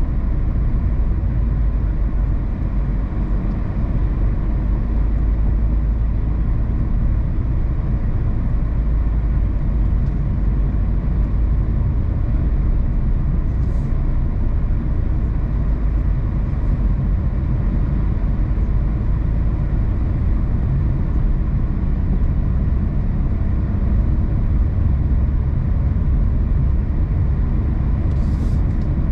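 Steady low rumble of a car driving along a road: tyre and road noise with engine hum, with two faint brief ticks, one about halfway through and one near the end.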